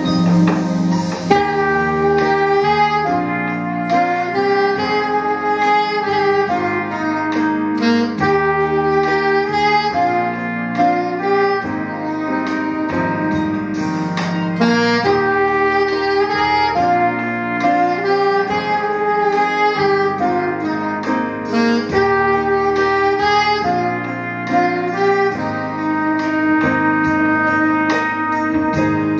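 Saxophone playing a slow melody of held, gliding notes over a backing accompaniment with a bass line and a steady beat.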